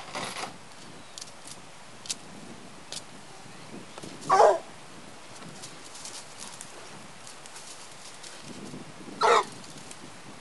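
Young Black and Tan coonhound barking at a raccoon: two loud, short barks about five seconds apart.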